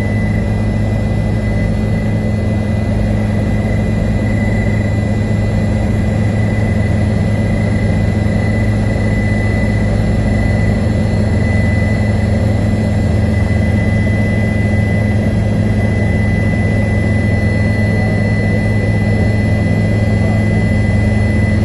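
Helicopter turbine engine and rotor running steadily: a constant low drone with a steady high whine over it.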